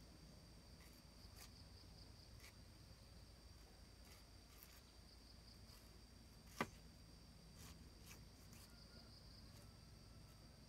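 Faint, steady high-pitched drone of insects such as crickets or cicadas, with scattered light clicks and one sharp click about six and a half seconds in.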